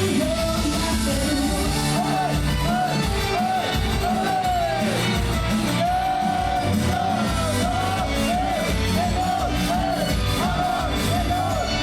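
Live pop-rock song from a female idol group: a sung melody with long held notes over loud, steady band music.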